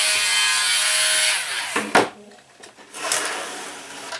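A Dremel Stylus cordless rotary tool with a sanding-wheel attachment runs with a steady whine, sanding the wooden cannon side walls of a model ship. It winds down about one and a half seconds in, followed by a sharp knock and a brief scratchy noise.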